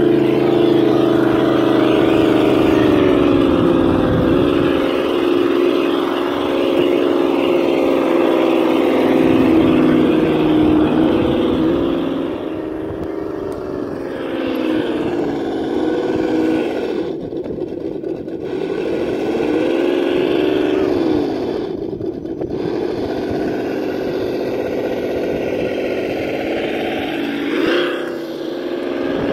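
Drivetrain of an Axial SCX10 radio-controlled scale crawler truck running, a steady pitched whine that rises and falls with the throttle as it climbs through dirt ruts.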